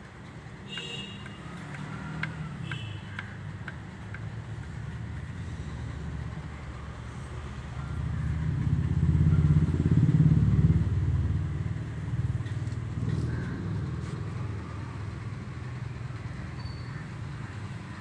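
Low rumble of a motor vehicle's engine that swells to a peak about ten seconds in and then fades, with a few faint clicks near the start.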